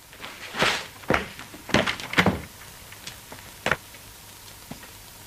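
A handful of dull knocks and thumps, most of them close together in the first two and a half seconds and one more a little later.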